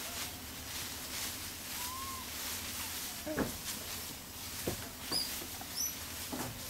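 A few faint, short, high-pitched chirps and squeaks of animals over a steady low hum, with two brief, steeply falling calls in the middle.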